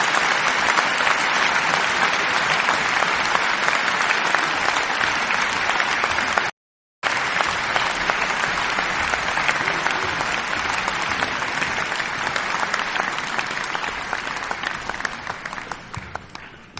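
Large concert audience applauding, a dense even clapping. Just past the middle it drops out completely for about half a second, then resumes and fades away near the end.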